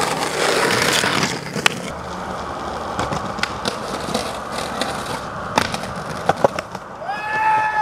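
Skateboard wheels rolling over rough pavement, with scattered sharp clacks of the board popping and landing. Near the end a person gives a long shout.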